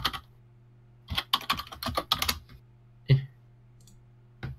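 Computer keyboard typing: a couple of clicks, then a run of keystrokes lasting over a second, and a single louder knock about three seconds in. A steady low electrical hum runs underneath.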